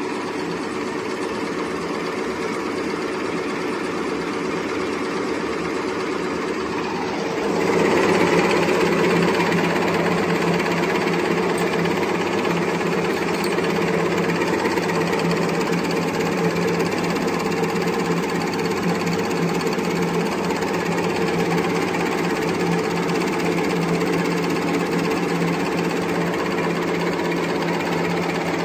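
High-speed napkin paper folding machine running with a fast, steady mechanical clatter. It grows louder about seven seconds in, then holds steady.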